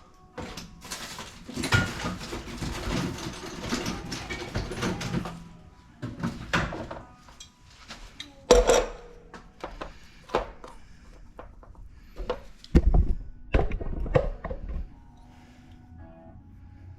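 Hands-on plumbing work in a small room: a few seconds of scraping and rustling, then several sharp knocks and heavy thuds of tools and parts being handled.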